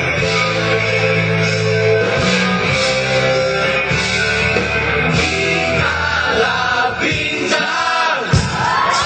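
Live pop-rock band music with electric guitar and a group of singers, played loud over a stage sound system.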